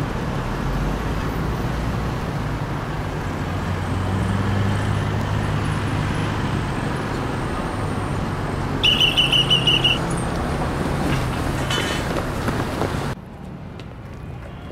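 Steady street traffic noise with a low engine hum. About nine seconds in, a high trilling tone sounds for about a second. Near the end the traffic noise cuts off abruptly to a quieter background.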